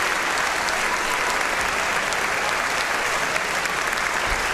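Large concert-hall audience applauding, a dense, steady clapping.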